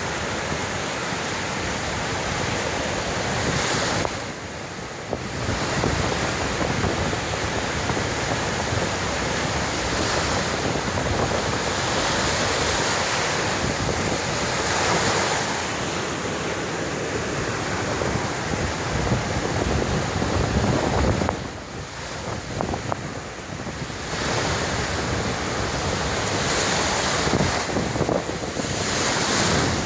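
Sea waves breaking on a beach: a continuous rush of surf that swells and ebbs, dropping off briefly twice, with wind buffeting the microphone.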